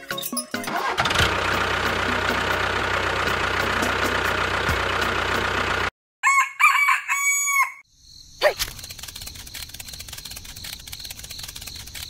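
Tractor engine running steadily for about five seconds, then cutting off. After a short gap a rooster crows once, followed by a quieter steady background hiss.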